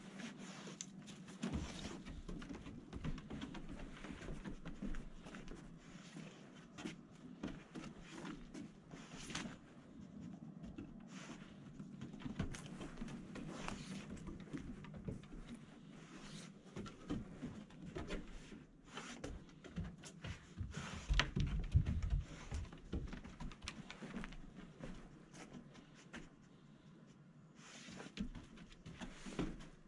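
Dog's nails clicking and pattering on wooden deck boards as it searches nose-down, with sniffing and shuffling footsteps. A run of louder low thuds comes about two-thirds of the way through.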